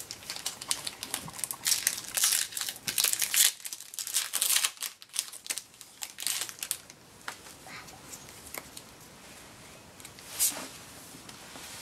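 Foil wrapper of a Pokémon TCG Lost Thunder booster pack crinkling and tearing as it is ripped open by hand, a dense run of crackles for the first several seconds. It then goes quieter as the cards are pulled out, with one sharp tick near the end.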